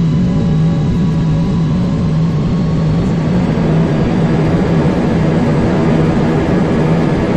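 Jet airliner's landing rollout heard from the cockpit: a steady low engine hum over a rumble, with a broader rushing roar building from about three seconds in as the aircraft decelerates on the runway.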